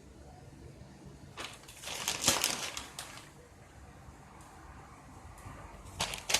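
Kitchen handling noises while cooking eggs: a rustling, crunching burst about a second and a half in that lasts about a second and a half, then a few sharp clicks near the end, over a low steady hum.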